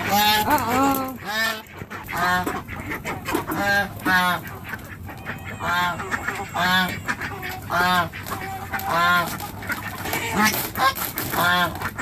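Domestic ducks calling repeatedly, about a dozen loud, harsh calls at uneven gaps of roughly a second, the first one gliding in pitch.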